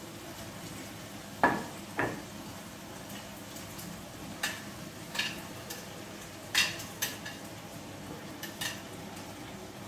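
Metal tongs knocking and clinking against a ceramic platter and a cast-iron camp oven as vegetable pieces are dropped into the pot. There are several sharp knocks, the loudest two about a second and a half and two seconds in, over a low steady sizzle from the pot.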